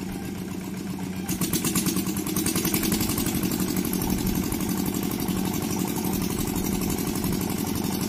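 Small engine of a walk-behind rice harvester running steadily, then picking up to a louder, faster beat about a second in as it is driven through a waterlogged, muddy paddy.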